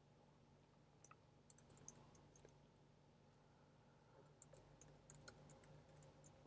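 Faint computer keyboard typing: two short runs of key clicks, about a second in and again past the middle, over a low steady hum.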